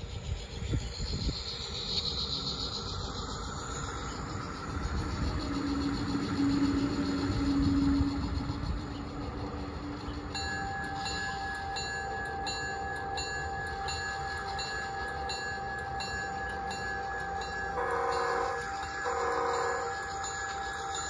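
G-scale Santa Fe NW-2 diesel switcher model running on garden track, its motor and wheels rumbling on the rails. From about halfway its sound system rings the locomotive bell in steady strokes, about one and a half a second, and sounds two short horn blasts near the end.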